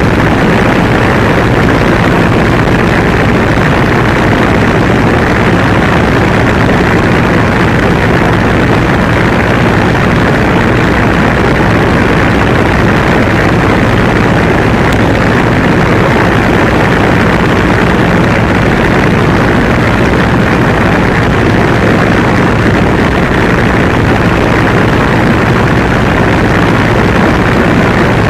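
MWfly B25L 150 hp aircraft engine and propeller of a BushCaddy R80 running loud and steady in flight, heard from a camera mounted outside the fuselage, with a rush of airflow over the microphone.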